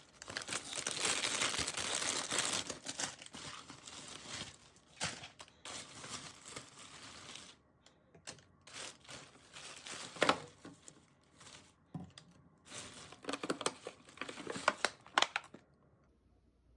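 Crinkling and rustling of packaging being handled, loudest for the first few seconds, then in short bursts with sharp clicks and taps, stopping shortly before the end.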